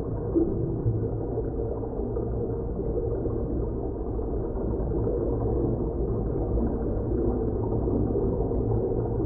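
Sci-fi ambience sound effect from a space and underwater library: a deep, steady rumbling drone with nothing high in it.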